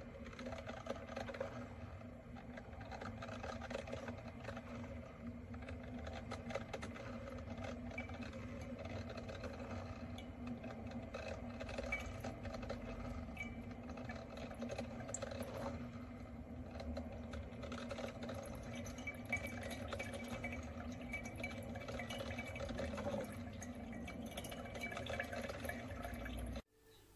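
Single-cup filter coffee maker brewing: water trickling and gurgling through, over a steady low hum, and it cuts off suddenly near the end.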